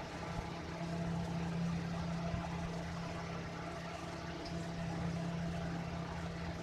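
Steady low mechanical hum, like a motor or appliance running, holding even with no change.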